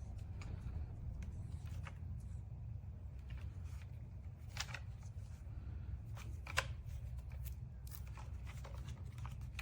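Steady low hum with scattered faint clicks and rustles of a small device being handled, the sharpest clicks about halfway through and again a couple of seconds later.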